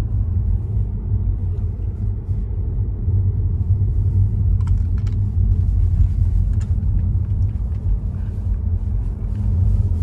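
Steady low road and tyre rumble heard inside a car's cabin as it drives along a town street, with no distinct engine note.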